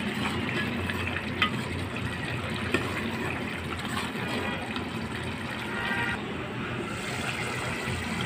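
Palak keema (spinach and minced meat curry) bubbling in a pot on the stove: a steady simmering hiss with occasional small clicks, its liquid cooking down.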